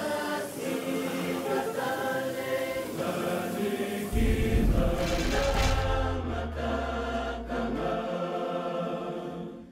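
Background music with choral singing in long held notes. A deep low tone comes in about four seconds in and dies away near eight seconds, and the music fades out at the end.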